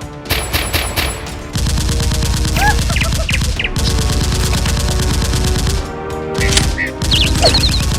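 Rapid automatic gunfire in long sustained bursts, with a short break about three-quarters of the way through, over background music.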